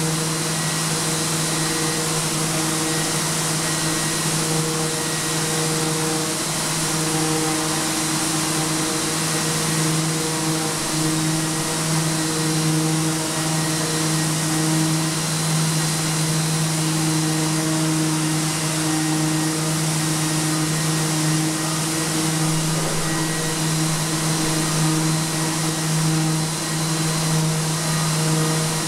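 Electric sander grinding compressed charcoal off a painted wall while a hose-connected Festool dust extractor runs with it: a steady motor drone and suction hiss, wavering a little as the sander is pressed and moved across the wall.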